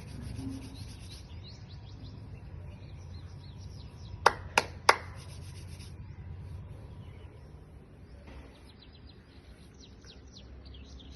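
Small birds chirping in quick, repeated short notes over a steady low rumble. Three sharp clicks come in quick succession about four seconds in, louder than the birds.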